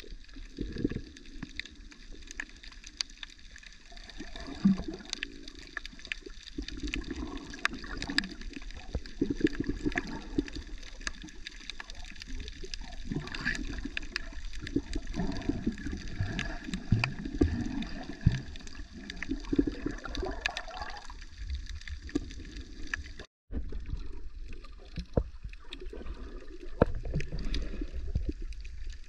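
Water sloshing and gurgling heard through an underwater camera's microphone, muffled, with a low rumble and scattered short clicks. The sound cuts out briefly about two-thirds of the way through.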